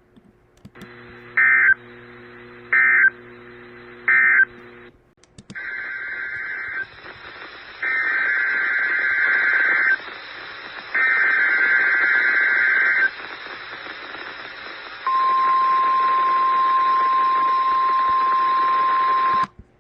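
Emergency Alert System SAME data bursts from a NOAA Weather Radio broadcast over radio hiss and a low hum. Three short bursts are the end-of-message code closing one warning, and three longer bursts are the header announcing the next. Near the end comes the steady single-pitch weather radio alert tone, held about four seconds.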